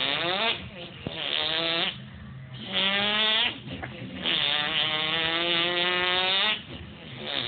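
A man imitating a revving import car engine with his voice: a run of rising revs with short breaks between them, the last and longest held for about two seconds.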